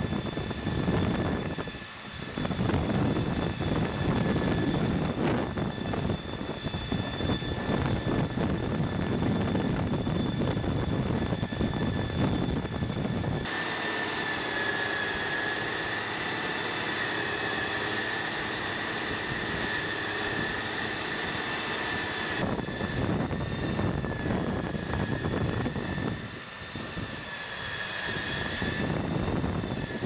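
Vermeer compost turner running as it works through a compost windrow: a steady engine and machine rumble with a high, steady whine over it. About a third of the way in the sound changes suddenly, the rumble dropping away and the whine growing stronger, and about two-thirds in the fuller rumble returns.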